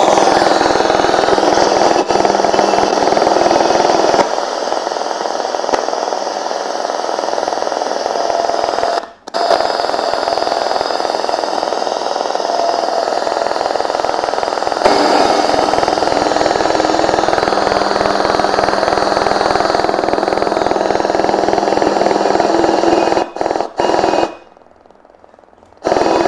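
Sharp QT-S3 portable radio-cassette player hissing with FM static as its tuning dial is turned between stations. The hiss cuts out briefly about nine seconds in, and again for about two seconds near the end.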